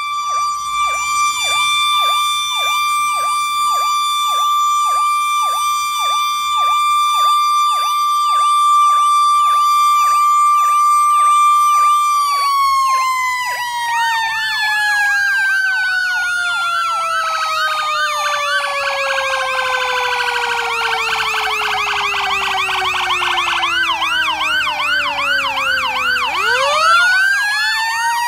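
Fire engine sirens sounding together: an electronic siren warbling rapidly, about two cycles a second, over a mechanical siren held at a steady high pitch. About halfway through, the mechanical siren winds down slowly to a low growl, and near the end it spins quickly back up.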